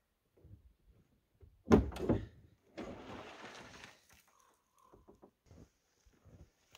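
Cargo bed and tailgate of a Polaris Ranger UTV being opened and tipped up: a loud clunk-and-rattle about two seconds in, then about a second of scraping, followed by scattered small knocks and clicks.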